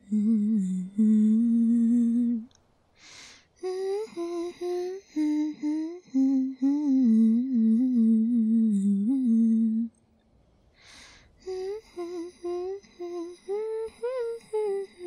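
A woman humming a tune in several phrases, with two short breaks between them.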